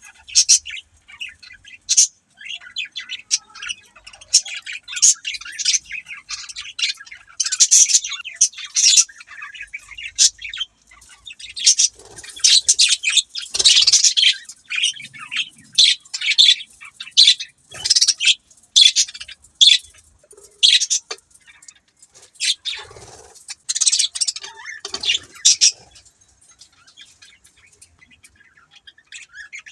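Budgies (budgerigars) chirping and chattering, with many short, high calls that come thickest in the second half and thin out near the end.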